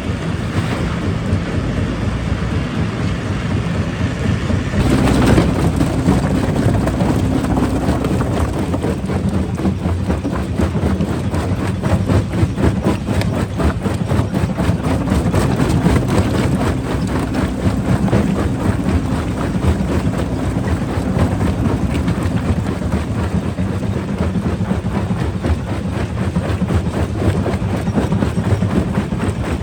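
Rock crusher running under load: a steady low engine hum with continuous dense clatter of rock being broken, growing louder about five seconds in.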